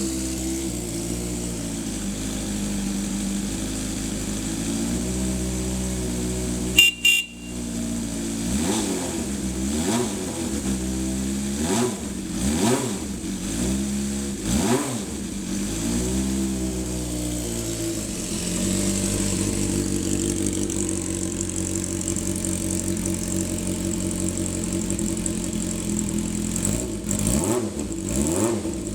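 Yamaha XJ400D's air-cooled inline-four engine running after start-up, with a short loud sharp burst about seven seconds in. The throttle is then blipped about five times, the pitch rising and falling with each, before it settles back to a steady idle, with a few more blips near the end.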